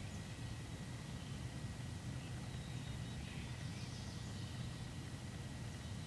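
Outdoor ambience: a steady low rumble with faint bird calls, one clearer call about three and a half seconds in, over a faint steady high tone.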